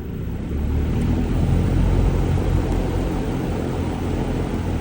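QuietCool whole house fan running, the rush of its air and motor building over about the first second and then holding steady.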